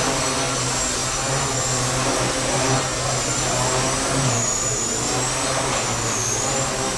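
Gaui Hurricane 200 electric micro RC helicopter flying: a high thin motor and gear whine that dips in pitch and recovers, about four seconds in and again near the end, over a steady low hum.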